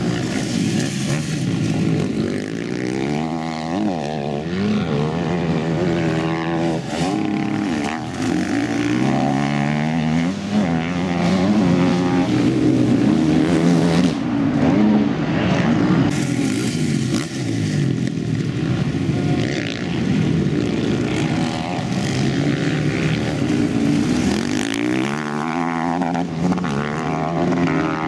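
Motocross bike engines revving hard and dropping back as the riders accelerate, shift and take jumps, the pitch rising and falling over and over.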